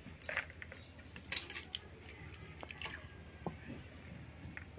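Wet potato sticks being rubbed and turned by hand over a bamboo basket, with water dripping: soft squelching, rustling and scattered light clicks, the loudest about a second in.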